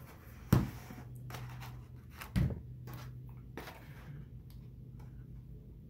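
Handling noises as cardstock is bent and held together, with two sharp knocks about two seconds apart and a few lighter clicks. A steady low hum sits underneath.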